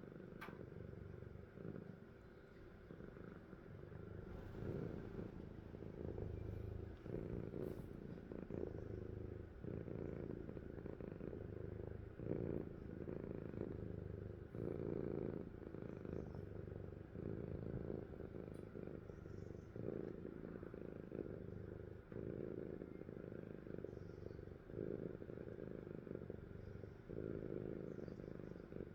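Sleeping cat snoring softly, a low purring rumble that swells in pulses about once a second.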